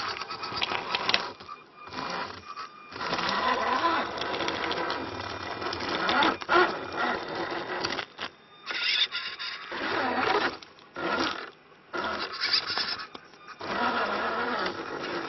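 Electric drive motor and gearbox of an RC scale Jeep Wrangler rock crawler whining in stop-start bursts as it creeps over rocks.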